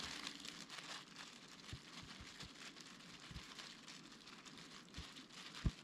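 Faint crinkling of plastic food-prep gloves as hands press and spread cooked rice over a sheet of gim on a wooden cutting board, with a few soft knocks, the loudest near the end.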